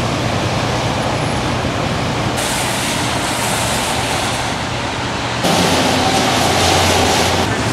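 Highway traffic passing on a wet road, a steady rush of tyre noise with an engine hum underneath. The sound jumps abruptly twice and is louder near the end.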